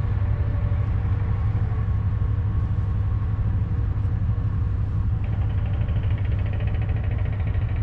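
A steady low mechanical rumble, like a vehicle running, with a faint fast ticking joining about five seconds in.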